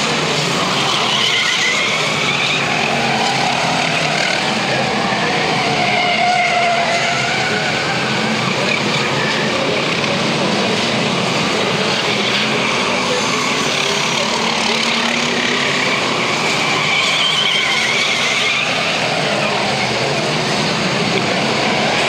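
A pack of F1 stock cars racing, their V8 engines running loud and continuous, the pitch rising and falling as drivers accelerate and lift through the bends.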